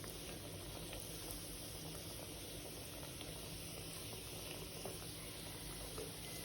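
Tapioca-coated nian gao being re-fried in hot oil, a steady quiet bubbling sizzle with a few faint pops.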